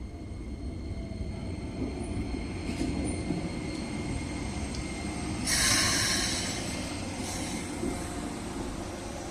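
Electric commuter train running by on the rails with a steady low rumble, a few faint high tones, and a loud hiss lasting about a second just past halfway.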